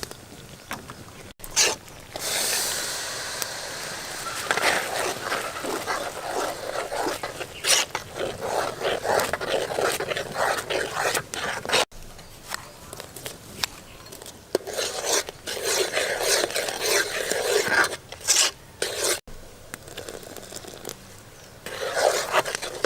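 Scraping and rubbing with many small clicks, typical of hands and utensils working vegetables during food preparation. It breaks off abruptly three times, at edits.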